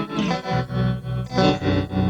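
Electric guitar played through a Flamma FS05 modulation pedal, a few chords struck and left ringing with a wavering modulation effect and a little drive.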